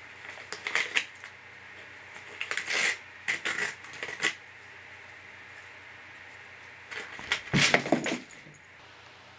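A cat chewing and pawing at a sheet of paper: the paper crinkles and tears in short bursts, four times. The last burst, near the end, is the longest and loudest and carries a dull bump.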